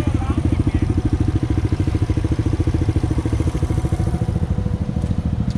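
ATV engine idling with a steady, rapid pulse.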